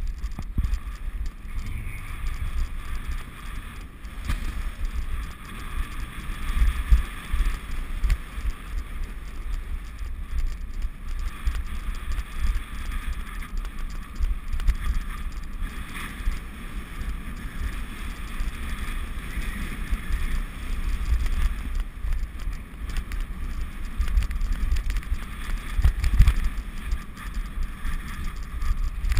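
A dog-towed wheeled rig, likely a bicycle, rolling over a bumpy grass track. The tyres hiss steadily and rattle with irregular jolts, with wind buffeting the microphone.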